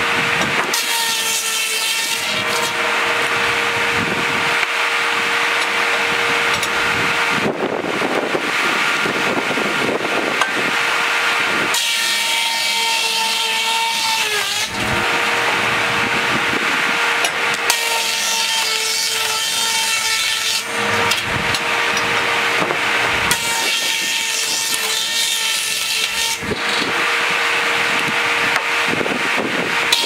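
Sawmill breast bench circular saw ripping Douglas fir flitches, about four cuts in a row, each a few seconds long. The saw hisses loudly while the wood is in the blade and hums steadily as it spins free between cuts.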